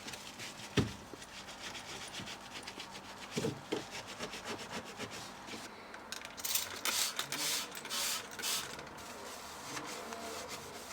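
Cloth rubbing and scrubbing over a fridge's plastic surfaces in short strokes, busiest in the second half, with a single knock about a second in.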